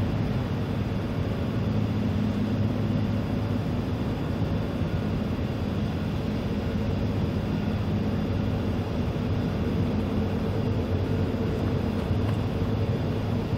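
Steady low engine drone with a constant hum, under wind noise on the microphone.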